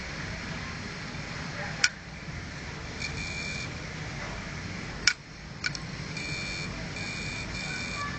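An opened 2.5-inch IDE laptop hard drive running: a steady low motor hum, with short high-pitched beeping tones coming and going, and three sharp clicks, the second and third close together. This is the click typical of a failing hard drive.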